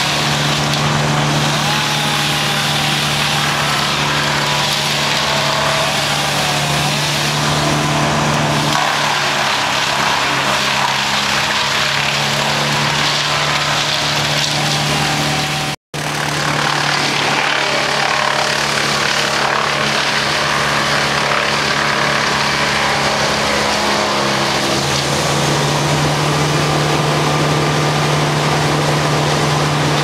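Wood chipper's engine running steadily at working speed while branches are fed through it; its pitch sags under load about a third of the way in and again near the end, then picks back up.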